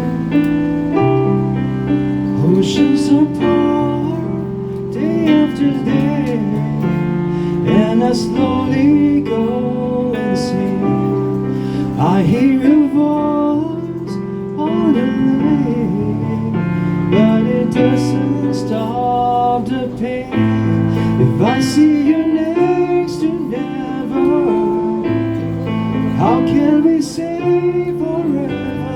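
Live song: a voice singing a melody over sustained keyboard chords.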